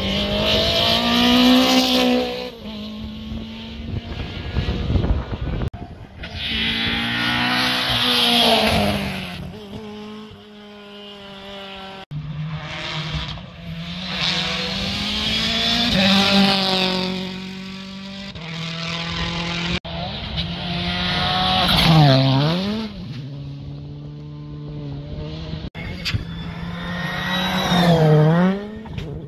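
Rally cars passing at speed one after another, engines revving high with pitch climbing through the gears and dropping on gear changes; twice the engine pitch plunges and climbs again, as under braking with downshifts. Each car's sound breaks off abruptly and the next one begins.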